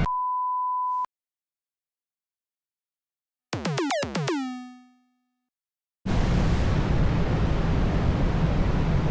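Cartoon sound effects: a steady one-second beep, then a quick cluster of falling pitch sweeps that settle into a low tone and fade. About six seconds in, a steady rushing rumble starts.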